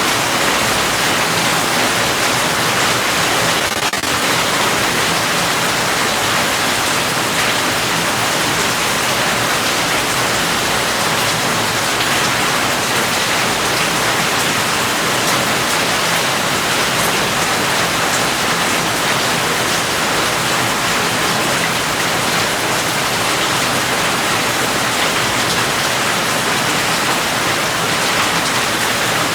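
Steady, heavy rain: a dense, even hiss of falling drops with no distinct individual drips.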